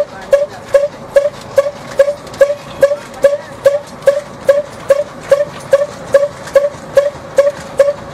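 A machine running with a steady beat of about two and a half sharp knocks a second. Each knock carries a short ringing tone.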